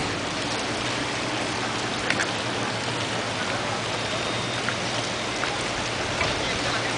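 Steady rain falling, an even hiss with a few sharp drop clicks, over a steady low hum.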